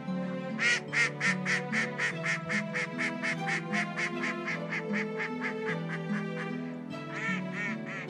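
A duck quacking in a long, rapid run of about five quacks a second, loudest at the start and fading gradually over some six seconds, then a short burst of a few more quacks near the end. Soft background music plays under it.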